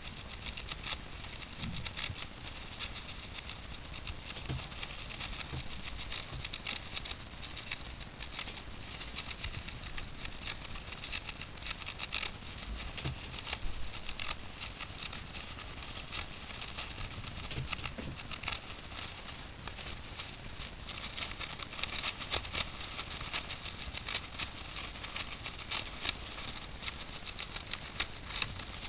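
A hamster shredding toilet paper: a steady fine rustling and crackling of the tissue, with many small irregular clicks.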